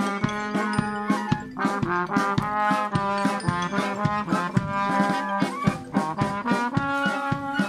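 Wind band playing a tune live: trombone, trumpet and flute over a steady drum beat.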